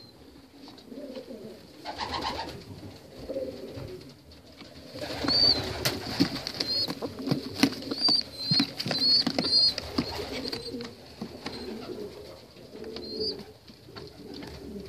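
Pigeons cooing in a loft. In the middle stretch come rustling and knocks from handling, with repeated short, high squeaks.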